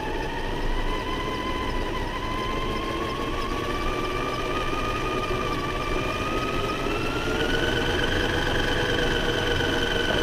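RC monster truck driving, its motor whining with a pitch that climbs slowly as it speeds up, stepping higher about seven seconds in, over a steady rough rumble.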